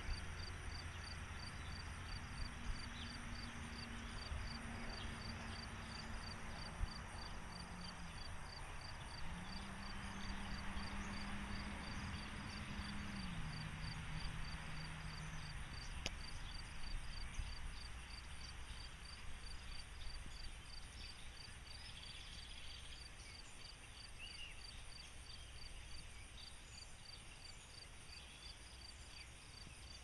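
Insects chirping in a steady, evenly repeating high pulse over quiet rural air, with a low hum heard twice in the first half.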